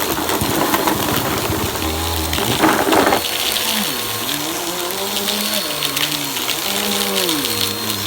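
Vacuum cleaner running steadily, a constant loud rushing hiss as it cleans up a crunchy mess.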